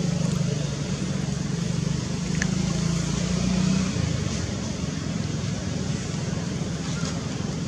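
Steady low motor drone over a constant hiss, easing a little about four seconds in, with one short high squeak about two and a half seconds in.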